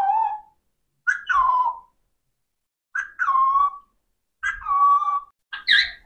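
Alexandrine parakeet giving repeated whistled calls, about one every second and a half. Each call starts sharp and high, then falls and holds on a steady note.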